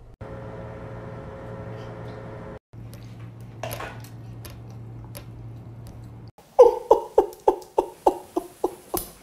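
A man laughing hard in a long run of short, evenly spaced bursts, about three a second, that starts about six seconds in. Before it there is only a steady low hum.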